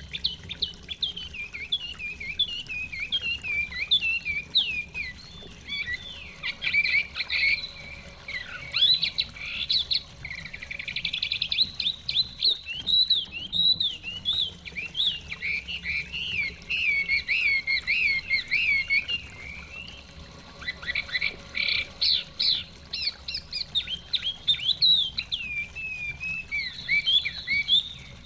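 Chinese hwamei singing a long, rapid, varied whistled song of fast-changing phrases, with brief pauses between bursts.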